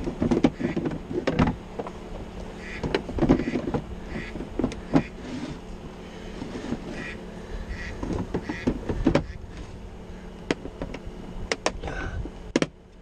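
Knocks and clunks of a plastic wet/dry shop vacuum being handled, lifted and set down on a boat deck, in clusters near the start, around three seconds in and around eight seconds in. A steady low hum runs underneath.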